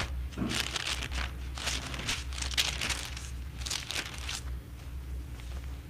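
Bible pages being leafed through: an irregular run of quick paper rustles and crinkles, several a second, as a passage is looked up.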